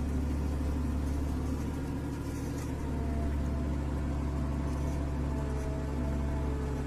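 Heavy machinery engine running steadily, a low drone with a faint higher whine that comes in about three seconds in.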